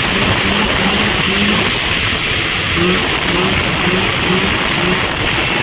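Rotax 503 two-stroke twin snowmobile engine running steadily at speed, under a loud, even rushing noise.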